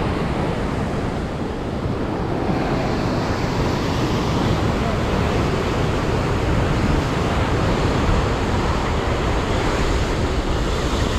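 Rough sea surf washing steadily against rocky shore, with wind buffeting the microphone.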